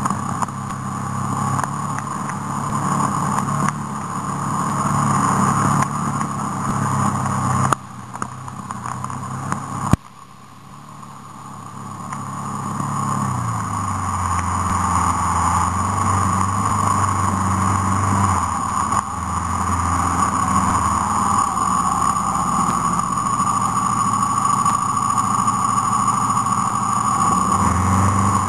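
A motor vehicle's engine running as it drives along a muddy dirt track, with road and wind noise. The sound drops away suddenly about ten seconds in, then the engine note builds up again and holds steady.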